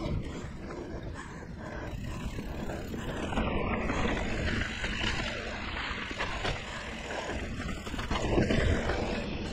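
Mountain bike (2017 Liv Pique 3) riding over dirt singletrack: continuous rushing noise of tyres on the trail and wind on a chest-mounted action camera's microphone. It swells and dips, loudest about eight seconds in.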